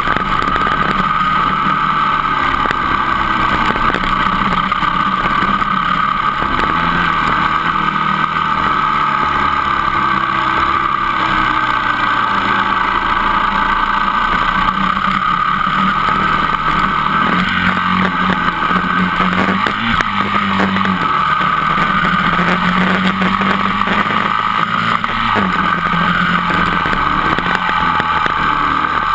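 Dirt bike engine running under way on a gravel road, its pitch climbing and dropping back several times with throttle and gear changes.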